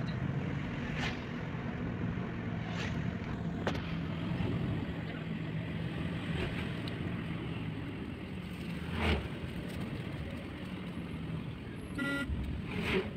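Steady engine hum and road noise inside a moving car, with a few short knocks along the way and a brief tone near the end.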